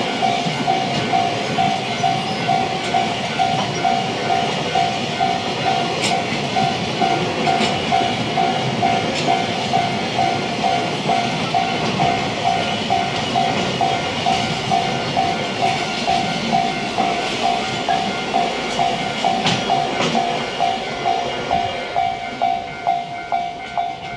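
Railway level-crossing warning bell ringing steadily, about two rings a second, while a train runs past the crossing with a steady rumble and occasional sharp wheel clicks over the rail joints. The train noise eases near the end, leaving the bell more exposed.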